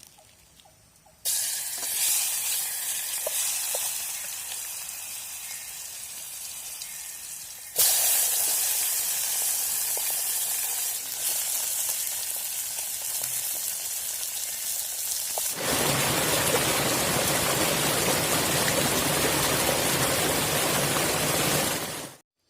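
Steady hissing noise in three stretches joined by abrupt cuts, the first about a second in and the last, about two-thirds through, fuller and deeper; it cuts off sharply just before the end.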